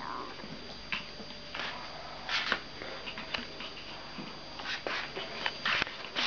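A puppy and adult small long-haired dogs scuffling on a tile floor: scattered short scrapes and rustles from paws and claws, several quick ones in a row about two seconds in and again near the end.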